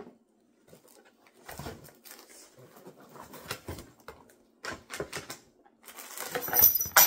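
Plastic packaging crinkling and small items being rummaged in a cardboard box, as scattered clicks and rustles that grow into louder, continuous crinkling near the end.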